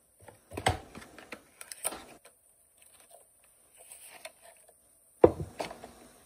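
Objects being handled and set down on a wooden tabletop: a few scattered clicks and knocks with soft packaging handling between them. The loudest is a sharp knock about five seconds in, as a glass medicine bottle is put down on the table.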